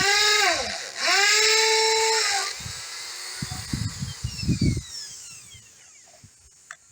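Electric power tool run twice, its motor pitch rising as it speeds up and falling as it is released each time, followed by a few low knocks and a fading whine winding down.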